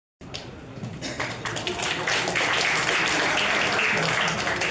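Audience applauding in a lecture hall, the clapping swelling about two seconds in and easing near the end, with some chatter underneath.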